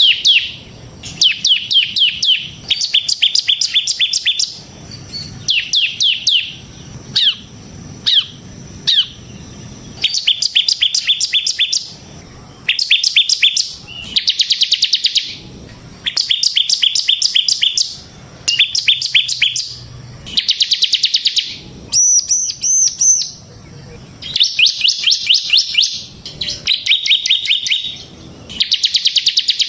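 Bar-winged prinia (ciblek) singing its rapid 'ngebren' song. It gives fast runs of sharp, high notes in bursts of a second or two, again and again with short pauses between them. One higher, chattering run comes about three-quarters of the way through.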